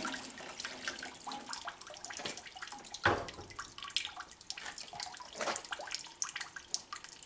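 Hot water trickling and dripping from a pistol barrel standing in a cup in a stainless steel sink as the pour ends, with scattered small clicks of handling and one sharp knock about three seconds in.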